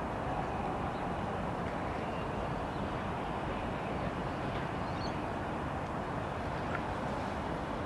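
Steady outdoor ambience: an even rumble and hiss with no change in level, with a few faint high chirps about five and seven seconds in.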